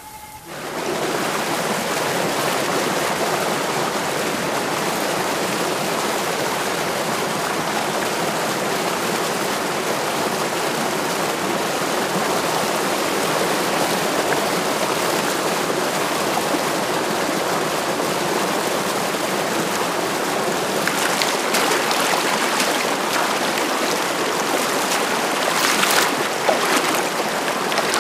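Stream water rushing steadily over rocks, coming in suddenly about half a second in. In the last several seconds there are sharper splashes as clay water pots are dipped into the stream.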